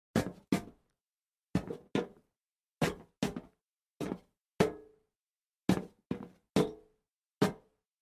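Feet shuffling on a metal plank: about a dozen short knocking steps, mostly in uneven pairs, some leaving a brief metallic ring.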